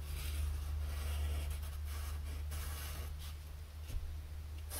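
Sharpie felt-tip marker drawing lines on paper, a soft scratchy stroke with each line, over a steady low hum.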